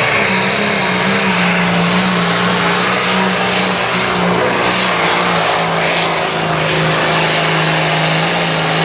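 Turbocharged diesel engine of a Limited Pro Stock pulling tractor running flat out under load while pulling the sled, a loud steady engine note with a heavy rush of turbo and exhaust. Its pitch sags slightly about a second in and then holds.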